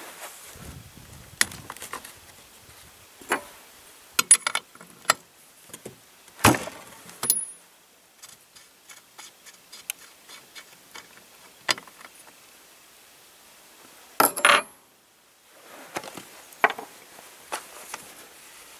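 Irregular metallic clicks, clinks and short rattles of hands handling a chainsaw's spark plug boot and spark plug as they are taken off the cylinder head, with a longer, louder rattle past the middle.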